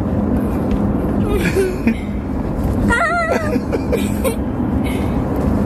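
Steady road and engine rumble inside a moving car's cabin, with a child's brief wavering vocal sound about halfway through.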